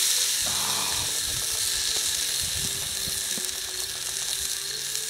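Bone-in chicken breast sizzling in hot bacon grease in a cast-iron Dutch oven as it browns, loudest at the start and easing slightly.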